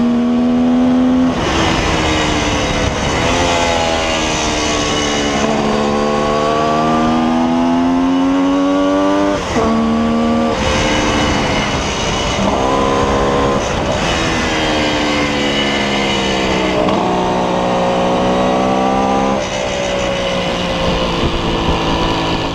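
1972 Kawasaki H2's 750 cc two-stroke triple engine, heard from the rider's seat, revving hard and falling back over and over: the pitch climbs under throttle and drops sharply at each gear change, several times. A steady rush of wind runs underneath.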